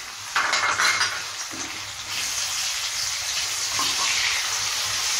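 Sliced onions sizzling in hot oil and butter in a kadai while they are stirred with a spatula. The sizzle jumps up sharply about half a second in and then keeps going steadily. The oil is hot enough to fry.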